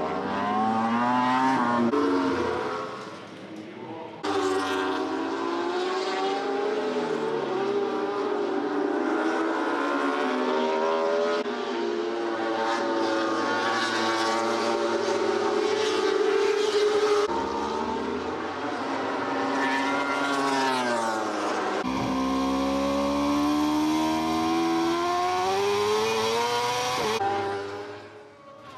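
Superbike racing motorcycle engines at high revs, pitch climbing as they accelerate through the gears and dropping on each shift and under braking. The sound changes abruptly a few times.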